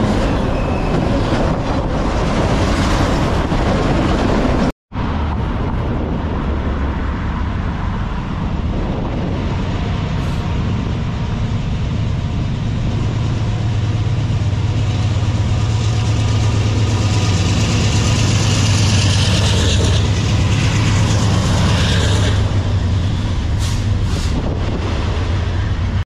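A freight train's cars roll past at close range, a steady noise of wheels on rail. After a sudden cut, diesel freight locomotives pass with a low engine sound that builds and is loudest in the second half, followed by intermodal container cars rolling by.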